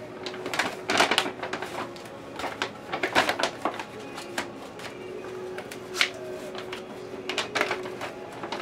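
A large shopping bag rustling and crinkling as a child handles it and reaches inside, in a string of irregular crackles.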